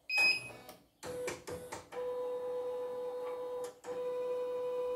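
CNY E900 portable embroidery machine with its case off, on the bench: a short high beep, then a few clicks, then from about two seconds in a steady electric whine that drops out briefly about a second before the end.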